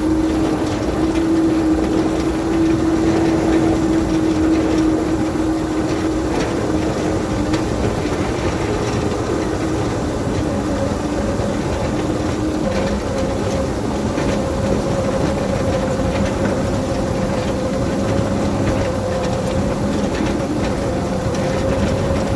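Miniature-gauge train pushing a Russell snowplow through deep snow: a steady rush of snow pouring over and off the plow blade, with the train's running and wheel noise and a continuous mechanical hum underneath.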